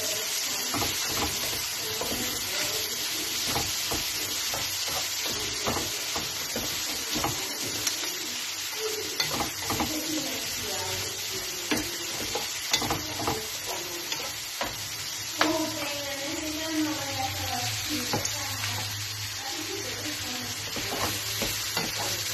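Noodles and vegetables sizzling steadily in a hot wok while a spatula stirs and tosses them, with frequent scrapes and taps of the spatula against the pan.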